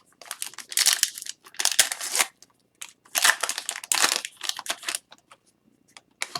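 Foil wrapper of a hockey trading-card pack crinkling and tearing as it is handled and opened, in several noisy bursts that thin out to a few faint crackles near the end.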